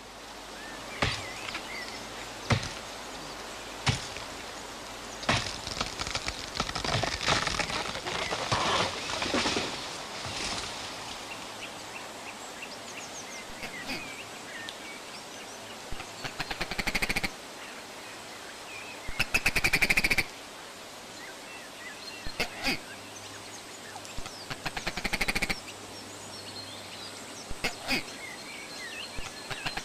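Birds chirping over a steady background hiss. A few single sharp knocks come about a second and a half apart at first, and several short, fast rattles of clicks come later, the loudest of them near the middle.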